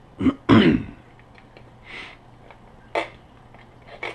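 A short, loud breath about half a second in, then a few sharp plastic clicks as the battery compartment of a Walkera Devo F4 radio transmitter is handled and worked open.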